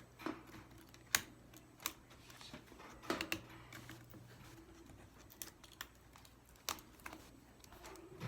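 Light, irregular clicks and taps of small laptop parts being handled as a new motherboard is fitted into a Chromebook's chassis, about a dozen spread over several seconds.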